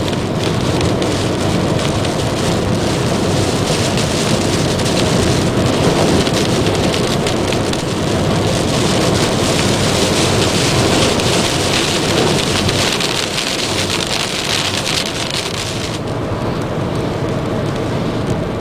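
Heavy rain pouring down in a thunderstorm, a loud steady hiss of rain on surfaces; the brighter high part of the hiss falls away about sixteen seconds in.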